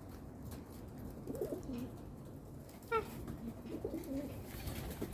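Cockatoo making low, soft murmuring calls in two short bouts, with a brief sharp chirp about three seconds in.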